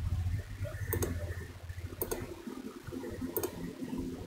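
Computer mouse clicking: three short, sharp clicks roughly a second or so apart, over a low hum that fades out about halfway through.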